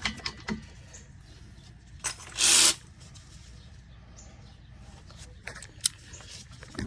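Metal tools clicking and clinking as a socket is set up for the impact gun, with one short, loud burst of hissing noise about two seconds in.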